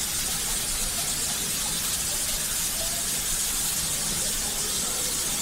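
Steam locomotive venting steam: a steady hiss that holds at the same level, with faint voices in the background.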